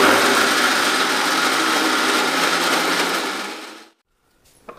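Small electric mixer grinder running at full speed, grinding dry whole spices to powder: a loud, steady whir that starts suddenly and dies away about four seconds in.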